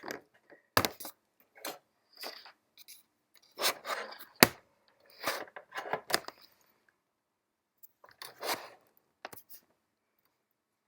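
Handling noise of hands working inside an opened keyboard: scattered light clicks, taps and short scrapes, with one sharper tap about four and a half seconds in.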